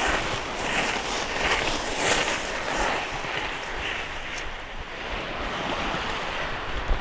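A bicycle rolling along a beach, its tyres crunching over pebbles and sand, with wind rushing on the microphone. Soft swishes come every second or so in the first few seconds.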